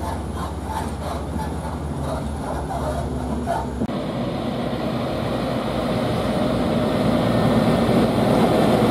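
Heavy diesel truck running with a steady low engine drone. About four seconds in the sound changes abruptly to a Scania P380 tractor unit hauling a loaded low-bed trailer, its engine and tyre noise growing steadily louder as it approaches.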